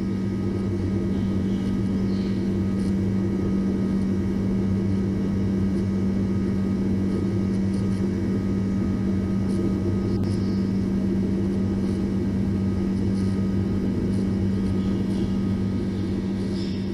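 Steady, even jet-engine drone with a strong low hum and rumble, fading near the end: the sound effect of an animated gas-turbine annular combustion chamber.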